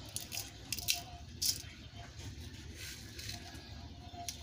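Salt sprinkled onto cut raw fish pieces in a metal bowl: scattered light ticks of grains landing, over a low steady hum.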